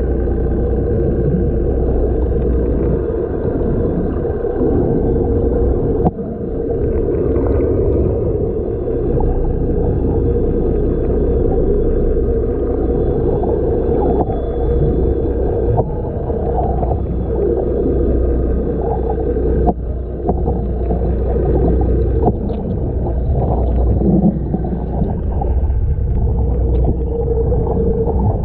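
Muffled, steady drone of a boat engine with water gurgling and sloshing over it.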